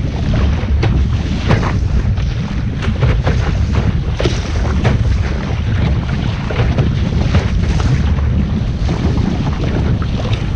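Wind buffeting the microphone aboard a sailing boat under way, with a steady heavy rumble and frequent short splashes and slaps of water.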